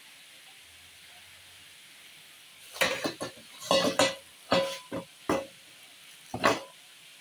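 Kitchen clatter: a run of six or seven sharp knocks and clatters, a couple with a brief metallic ring, starting about three seconds in and stopping shortly before the end. Under it is a faint steady hiss.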